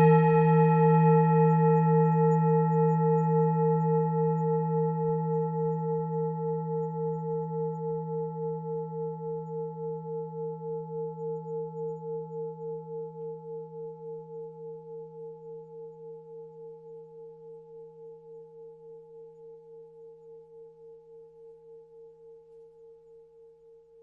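Tibetan singing bowl, struck just before, ringing and slowly dying away from loud to faint, with an even wavering pulse of about two to three beats a second. A low hum carries several higher overtones.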